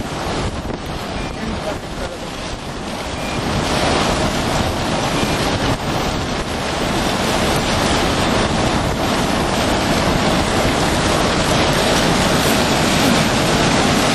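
Strong wind rushing and buffeting over the microphone, a dense steady rush that grows louder about three to four seconds in and then holds.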